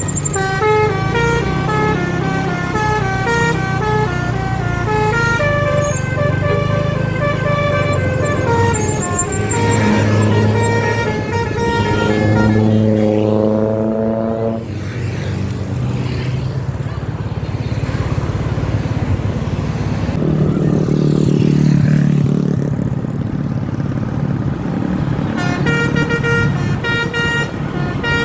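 Bus basuri telolet horn playing quick runs of stepped musical notes over the bus engine's low running. About midway there is a rising tone, and the note runs return near the end.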